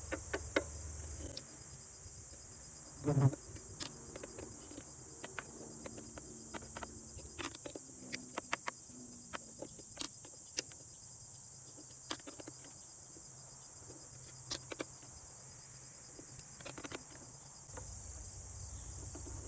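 Small metal clicks and taps of a wrench working the screws out of a DeWalt 735 planer's cutterhead blade cover, with screws set down in a small metal tray and a louder knock about three seconds in. A steady high-pitched hiss runs underneath.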